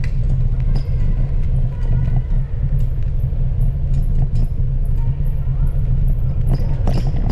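Steady low rumble of wind buffeting the microphone and wheels rolling on asphalt while riding through a tunnel, with faint scattered clicks.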